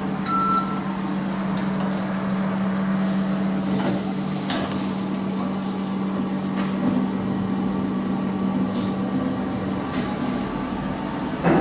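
ThyssenKrupp machine-room-less passenger lift in use: a steady low hum, a short electronic beep just after the start, and a few sharp clicks and knocks, with a thump near the end.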